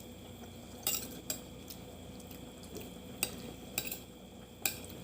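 Crab shell being cracked and picked apart at the table: about five faint, sharp clicks and snaps spread over a few seconds.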